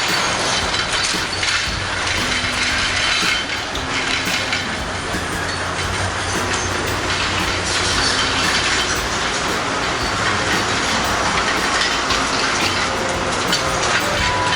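A train running past on the track, with a steady, loud noise of wheels on rails.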